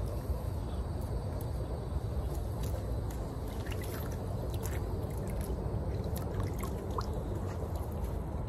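River water running over rocks: a steady rushing hiss, with a few faint clicks through it.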